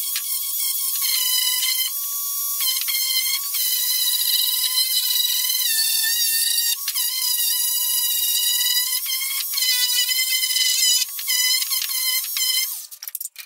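Electric palm sander running on a strip of wood: a high, steady whine that wavers slightly in pitch, broken by short clicks every second or so. It stops near the end.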